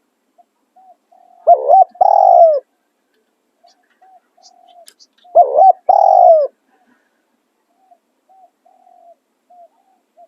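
Spotted doves cooing: two loud call phrases about four seconds apart, each a short note then a longer one, with fainter coos between them.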